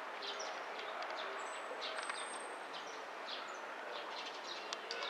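Small birds chirping now and then, short high chirps over a steady outdoor background hiss, with one thin high whistle about a second and a half in.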